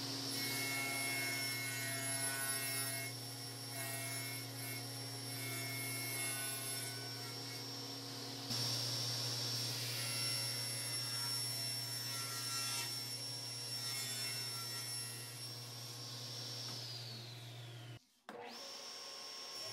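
Table saw running and cutting plywood: a steady motor hum and high blade whine, with the rougher noise of the blade cutting through the sheet. Near the end the whine falls in pitch and the sound breaks off briefly.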